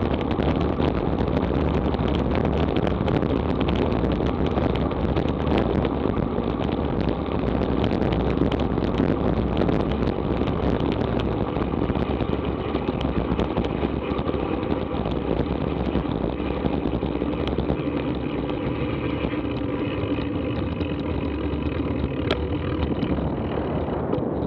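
Wind rushing over the microphone of a bike-mounted action camera as a road bike travels at about 30 mph. The noise eases a little over the last several seconds as the rider stops pedalling and slows.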